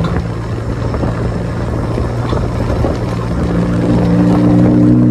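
Car driving, with a steady low engine drone over rumbling road noise; the engine note rises and gets louder about three and a half seconds in.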